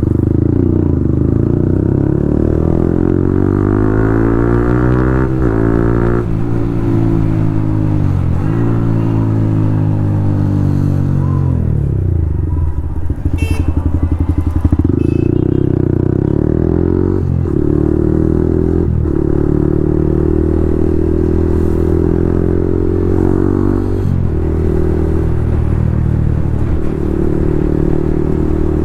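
Yamaha MT-15's single-cylinder engine through an Akrapovic full-system exhaust, under way. The revs climb and drop sharply several times as it shifts gears. The pitch sinks as it slows about halfway through, then it pulls up again and holds steadier revs with a few more shifts.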